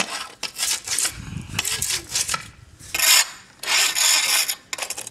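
A long-handled weed scraper rasping along the joints between concrete paving slabs, digging out weeds, in several uneven scraping strokes. The longest strokes come in the second half.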